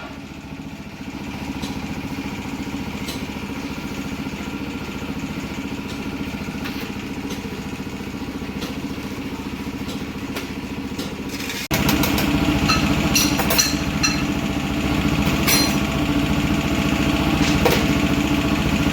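Motorcycle engine idling steadily, with the sound abruptly louder from about twelve seconds in, where light metallic clinks of tools sit over it.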